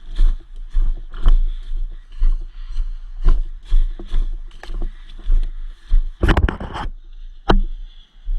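Footsteps and rustling through jungle undergrowth, with thumps about twice a second, over a steady high insect drone. A denser crackle of brush comes about six seconds in, and a sharp click about a second later.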